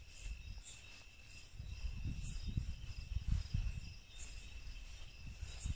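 Crickets chirping steadily in a continuous high trill, with short higher chirps every second or so. Low, uneven thumps and rustling from walking with the camera through grass lie underneath.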